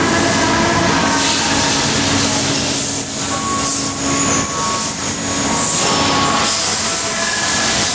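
Steady, loud machine noise from a CNC lathe cell with a robot loader running, with thin high whining tones that come and go in the middle.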